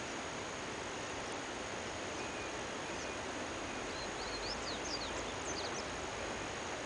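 Steady outdoor background hiss, with a run of short, quick bird chirps about four seconds in.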